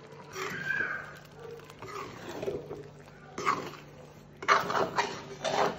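Metal spoon stirring and scraping mango pieces in a steel pan of simmering pickle liquid, with clattering strokes in the second half, over a steady low hum. A brief high-pitched wavering sound about half a second in.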